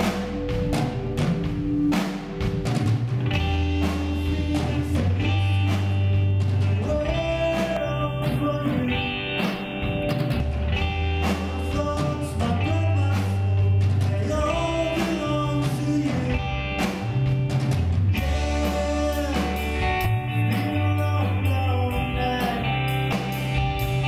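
Live rock band playing a song: electric guitars, bass and drum kit, with the drummer singing lead vocals.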